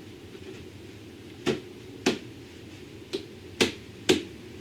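Five sharp knocks as a wooden screen panel is worked into a tight-fitting frame opening, irregularly spaced over about three seconds.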